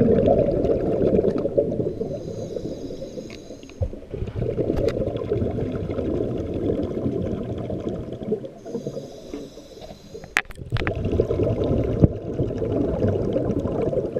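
Muffled underwater rumble and bubbling of a scuba dive recorded through a camera's underwater housing, consistent with a diver breathing through a regulator. The rumble eases off twice, and a faint high hiss is heard in those gaps. A couple of sharp clicks come about ten seconds in.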